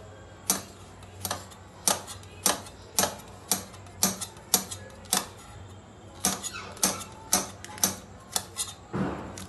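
Kitchen knife slicing a green chili directly on a stone countertop: sharp clicks of the blade striking the stone, about two a second, with a brief pause a little past halfway.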